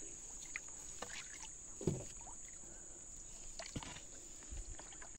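Small canal boat being paddled with a wooden paddle: soft splashes and occasional knocks of the paddle against the hull, the loudest a dull thump about two seconds in. A steady high insect drone runs underneath.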